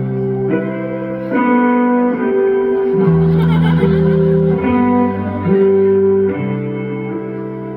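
Song intro played loud through a concert PA, led by guitar: sustained chords over a bass line, changing every second or so.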